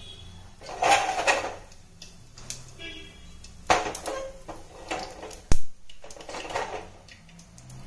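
Mustard seeds spluttering in hot oil in an aluminium pressure cooker: scattered crackles and pops against the pot, the sharpest about five and a half seconds in. The spluttering shows the tempering oil is hot and ready for the onions.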